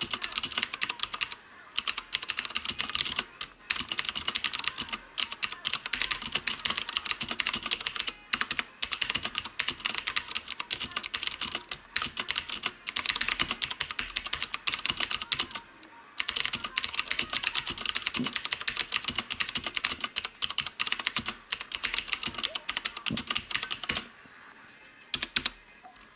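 Fast typing on a HyperX Alloy FPS Pro tenkeyless mechanical keyboard with Cherry MX Blue switches: a rapid stream of clicky keystrokes broken by short pauses, stopping about two seconds before the end with a few last key presses.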